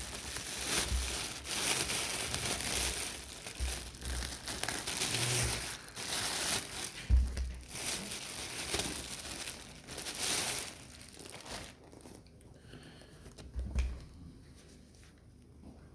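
Packaging being handled while the boxing gloves are unwrapped: crinkling and rustling, with a few soft low thumps, that dies down about eleven seconds in.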